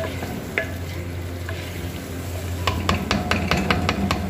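A wooden spoon stirs mixed vegetables sizzling in a clay cooking pot. In the second half the spoon knocks against the pot's clay sides in a quick run of about nine knocks, about five a second.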